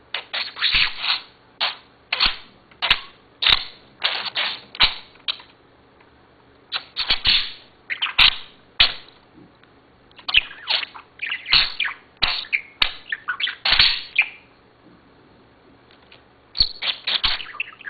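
Pet budgerigar chirping and chattering in quick bursts, with sharp taps mixed in, broken by two short pauses about six seconds and fifteen seconds in.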